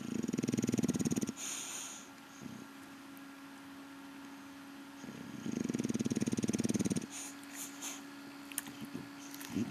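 English Bulldog snoring in its sleep: two long, fluttering snores about five seconds apart, the first followed by a short hissing breath.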